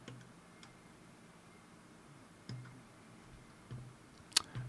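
Faint, scattered clicks of a computer mouse and keyboard, about six in all, with the sharpest near the end.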